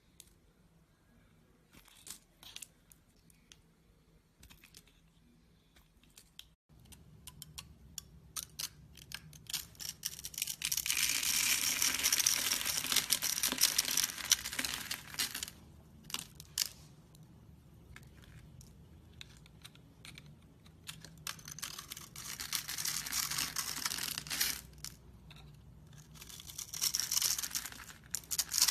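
Slime being handled, at first with a few scattered soft clicks. From about ten seconds in come spells of dense crackling and popping, the longest about five seconds.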